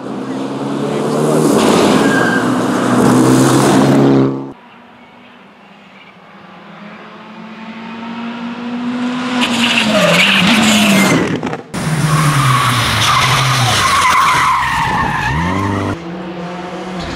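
Rally cars at racing speed in several separate passes: engines revving hard, pitch dropping and climbing again through gear changes and braking for corners, with a hiss of tyre and road noise.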